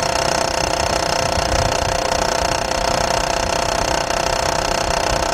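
2003 GMC Envoy's 4.2-litre straight-six running with the AC on, with a steady, rapid rattle from the belt tensioner. The worn tensioner is hitting against the engine block and needs replacing.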